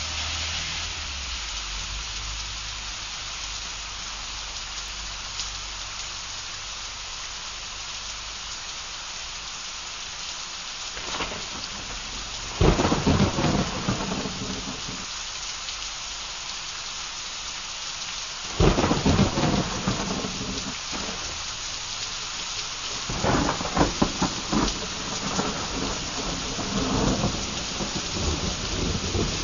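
Heavy downpour hissing steadily, with thunder: loud cracks and rumbles break in about 12 seconds in, again about 18 seconds in, and in a longer bout of several cracks from about 23 seconds on.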